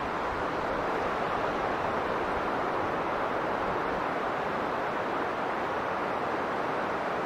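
Steady wind of a snowstorm, an even hiss with no gusts.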